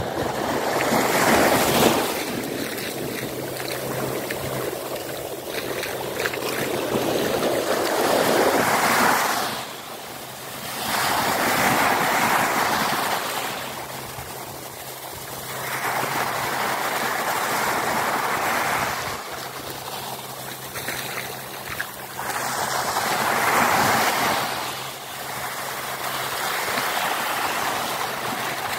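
Small surf waves breaking and washing up a sandy beach, the rush of water swelling and falling back every few seconds.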